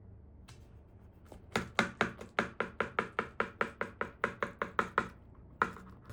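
Kitchen knife chopping rapidly on a cutting board, an even run of about four to five strikes a second, with a few single knocks before and after.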